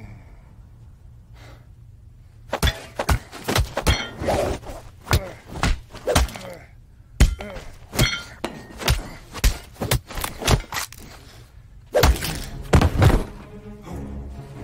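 Fight-scene sound effects: a fast run of punch, kick and body-impact hits over a low music bed. The hits start a few seconds in, come in quick flurries with two short pauses, and stop near the end.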